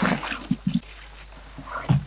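Footsteps on dry leaf litter with leaves brushing against legs: a handful of separate crunching steps, the loudest near the end.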